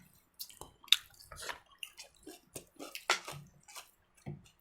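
Irregular small wet clicks and taps, a few a second, from eating and handling food at a meal.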